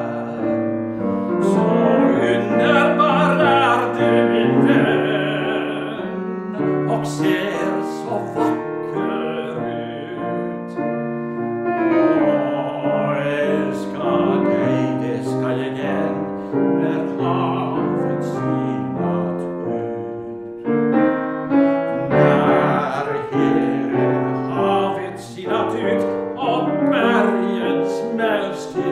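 A classical tenor singing an art song, accompanied by grand piano, with sustained sung phrases over the piano.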